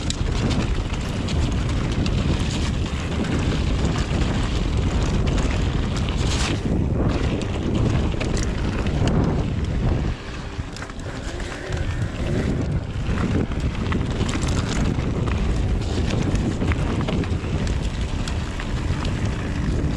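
Wind buffeting the camera microphone and tyres rumbling over rough trail as a mountain bike descends at speed, with a few sharp knocks from the bike; the noise eases for a moment about halfway through.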